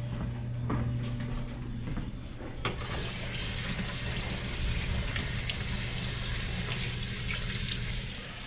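Kitchen sink faucet running as hands are washed under it: a steady rush of water that starts about a third of the way in and stops near the end, over a steady low hum.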